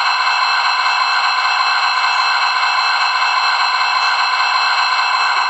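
Sound-decoder diesel engine sound from a DCC model of an Amtrak GE Dash 8-40 locomotive, running steadily through its small onboard speaker. It is tinny, with no bass and several steady whining tones.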